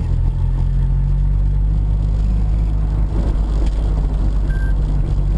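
Car engine running at steady revs, heard from inside the cabin while driving, over a haze of road noise. The engine note shifts slightly about three seconds in.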